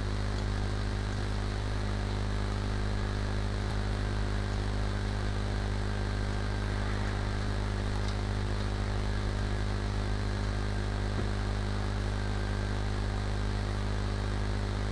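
Steady low electrical hum with an even hiss over it: the background noise of the recording setup.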